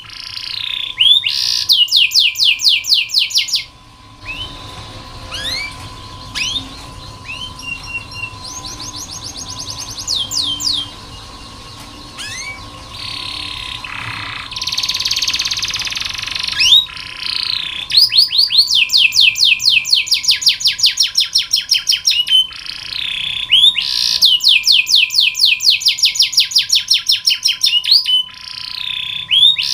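Domestic canary song: long fast trills of rapidly repeated high notes, broken by single rising chirps.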